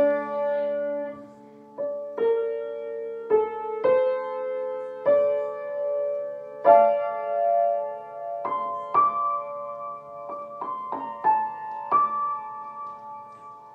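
Piano played slowly, chords struck about once a second and left to ring and fade, the notes coming closer together and higher toward the end.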